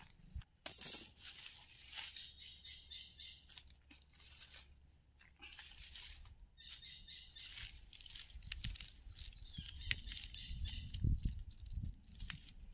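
Rustling and crinkling handling noises with scattered clicks, and twice a short run of quick chirping notes. A low rumble with a few thumps grows in the second half.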